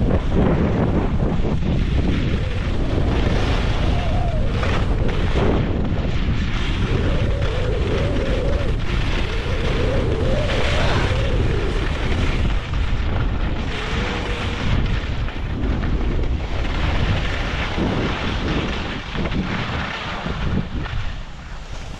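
Wind buffeting an action camera's microphone during a ski run, a heavy steady rumble mixed with the hiss of skis sliding on snow. It eases off over the last few seconds as the skier slows almost to a stop.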